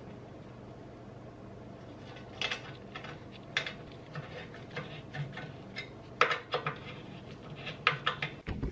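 Hand tool clinking and tapping against the metal of an engine's aluminium oil sump and its fittings: irregular sharp metallic clicks, a few at a time, more of them near the end, over a steady low hum.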